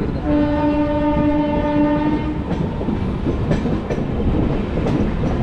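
A locomotive horn gives one steady blast of about two seconds as the train nears a level crossing, then the express runs on with a loud rumble and the clack of wheels over rail joints, heard from an open coach door.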